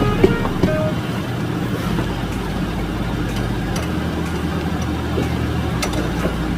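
Steady low drone of onboard machinery on a fishing boat, with a few sharp knocks near the end.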